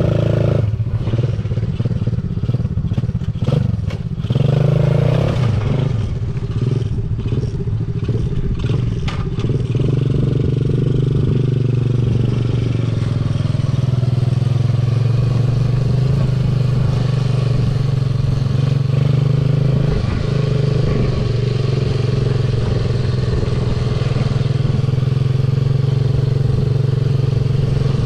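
A 125cc ATV's engine running steadily under way, with a brief rise in engine speed about four to five seconds in and a few clicks and rattles in the first several seconds.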